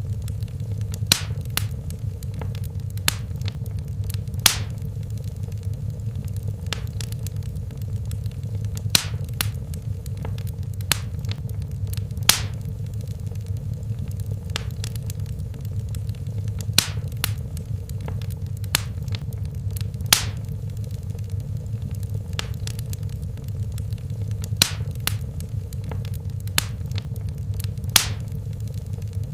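Fire in a fireplace crackling: sharp, irregular pops every second or so over a steady low rumble of the flames.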